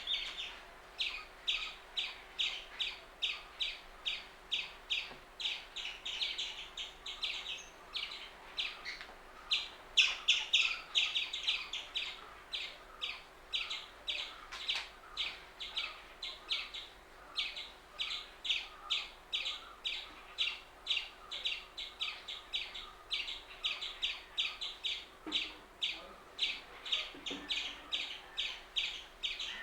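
Indian palm squirrel calling with a long, steady series of short, sharp, high chirps, about two to three a second, without a break.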